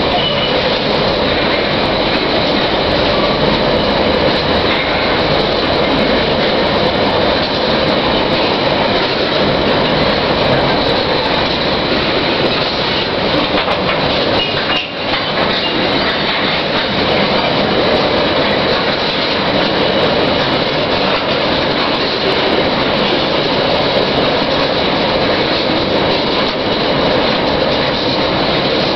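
Coal train rolling past close by: a steady, loud rumble of its wagons' wheels on the rails, with one short dip in level about halfway through.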